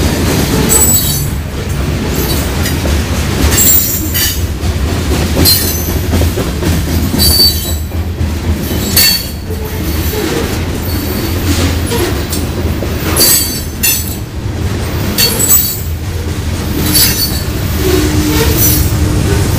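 Loaded grain hopper cars rolling past, their steel wheels rumbling on the rails with repeated short high-pitched flange squeals. Near the end a steady engine hum comes in as the rear pushing locomotive, a Union Pacific GE AC4400CW diesel, approaches.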